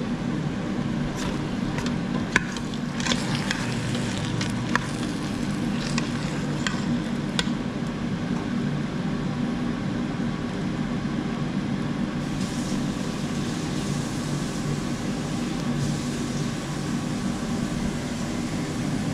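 A steel ladle clinks and scrapes against the stainless inner pot of an electric pressure cooker as rice and vegetables are stirred: a run of sharp clicks in the first several seconds over a steady low hum. In the second half a soft hiss of food sizzling in the hot pot comes up.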